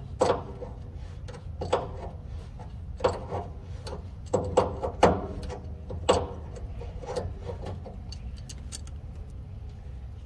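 Sharp metal clinks of an adjustable wrench working the fitting of a diesel tank's drain valve, about eight strikes with short ringing in the first seven seconds, over a steady low rumble.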